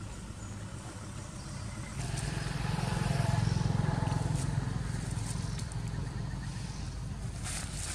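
A motor vehicle's engine passing. Its low hum swells about two seconds in, then slowly fades.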